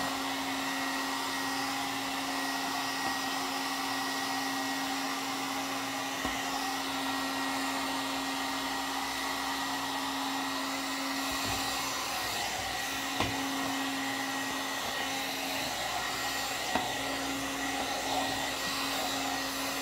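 One-step hot-air dryer brush running steadily, its motor humming under the rush of blown air, with a couple of faint ticks from the brush being handled.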